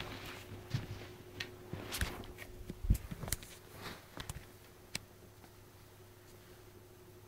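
Handling noise: scattered clicks, knocks and short rustles from a handheld camera being moved over a football shirt, dying down after about five seconds, with a steady low hum underneath.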